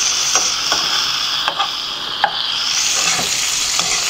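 Ackee, saltfish and onions sizzling in a hot frying pan, with a spoon scraping and knocking against the pan a handful of times as the mixture is stirred.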